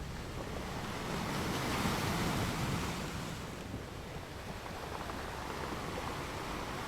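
Ocean waves washing onto a beach, swelling to a surge about two seconds in and then easing back.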